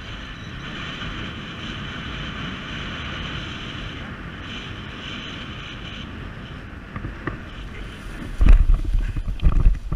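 Airflow rushing over the microphone as the tandem paraglider glides low over the grass. From about 8.5 s come loud, irregular low thumps and rumbles as the pair touch down and run out the landing.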